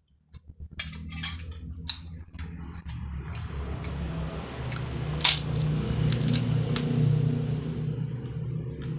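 A motor vehicle's engine running close by, a steady low hum that builds up through the middle. Sharp clicks come in the first few seconds, and one loud click falls a little after five seconds.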